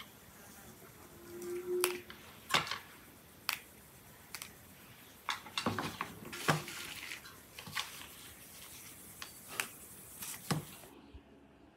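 Fresh green bean pods snapped by hand: a string of crisp, irregular snaps, roughly one a second, as the pods are broken into pieces.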